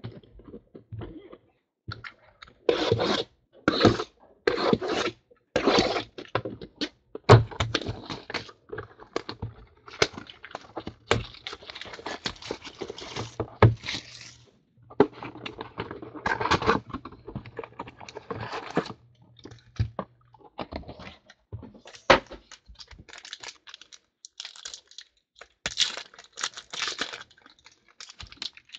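Trading-card boxes being torn open and handled: repeated tearing and crinkling of wrapping and cardboard, with a few sharp knocks as boxes are set down on the table. Near the end, foil card packs rustle as they are stacked.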